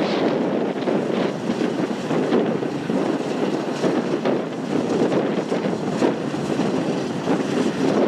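Claas Lexion 670 combine harvester running steadily as it cuts barley, with wind buffeting the microphone.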